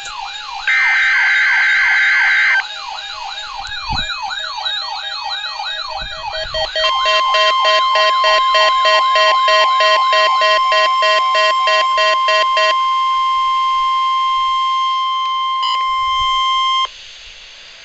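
Electronic siren and alarm tones layered together: a fast wavering wail, a harsh steady tone for about two seconds near the start, and a stepped warbling pattern. About seven seconds in, a steady high tone begins, holds for about ten seconds and cuts off sharply. That tone is the NOAA Weather Radio 1050 Hz warning alarm tone.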